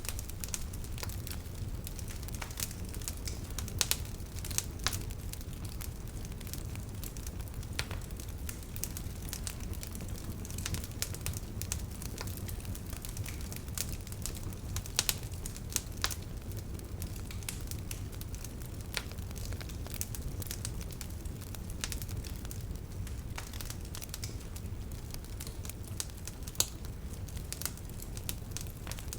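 Bonfire burning: wood crackling with irregular sharp pops, a few louder ones around the 4, 5, 15 and 27 second marks, over a steady low rumble of the flames.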